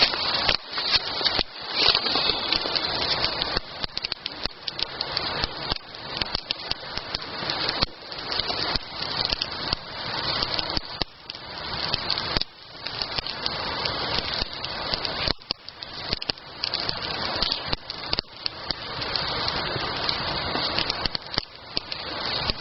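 Wood campfire burning: a steady rushing hiss with many sharp, irregular crackles and pops.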